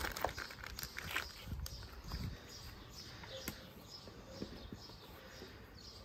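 Birds singing faintly in the background, with a few light knocks and clicks in the first couple of seconds as a table is being put together.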